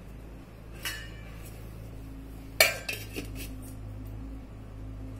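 Stainless steel plate set down over a steel bowl as a lid: a light clink about a second in, then a louder metal clank a little past halfway, followed by a few smaller clinks. A steady low hum runs underneath.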